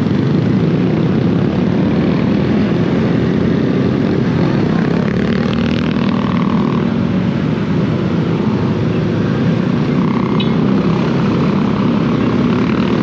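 Yamaha Aerox 155 scooter's single-cylinder engine running steadily at low speed in traffic, mixed with road noise and the engines of surrounding motorcycles. Two brief higher-pitched tones sound about six and ten seconds in.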